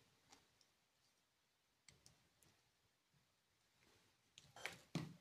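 Near silence, then a few small clicks and taps about four and a half seconds in, from small electronic parts being handled on the bench.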